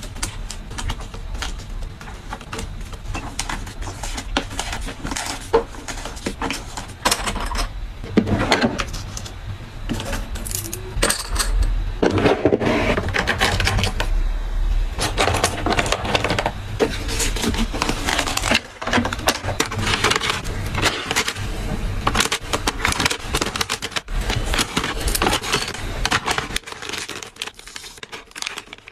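Packing of press-on nails by hand: a close, continuous run of small clicks, taps and crinkles of packaging being handled, growing quieter near the end.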